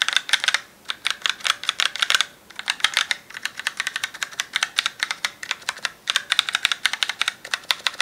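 Typing on a Razer BlackWidow Lite mechanical keyboard with Razer Orange tactile switches: quick runs of keystroke clacks with short pauses between the runs.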